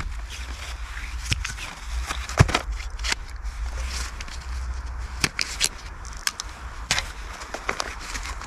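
Hand tools, a pull saw and a small hatchet, being handled and laid down on a needle-covered forest floor: scattered light knocks and clicks, the loudest about two and a half seconds in, over a low steady rumble.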